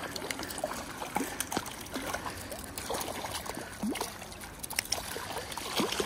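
River water splashing and gurgling as a hooked trout thrashes at the surface close in, over the steady wash of the current. Scattered small ticks run through it.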